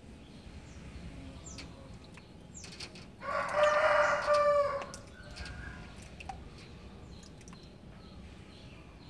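A rooster crowing once, about three seconds in, lasting about a second and a half.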